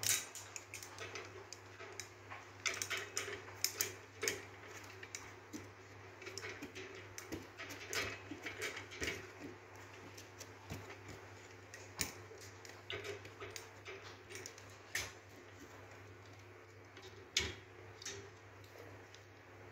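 Steel pliers clicking, knocking and scraping irregularly against the metal pipe and valve of a hand-operated grease pump while its discharge valve is being unscrewed, over a steady low hum.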